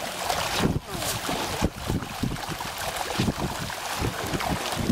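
Many fish thrashing at the surface of a pond, a continual irregular patter of splashes, with wind buffeting the microphone.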